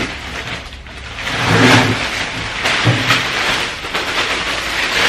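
Clear plastic wrapping crinkling and rustling as it is pulled off a new motorcycle fuel tank, loudest about a second and a half in.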